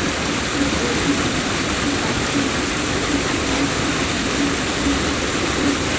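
Steady rush of a waterfall and river in flood, the high water running strong over and around the rocks.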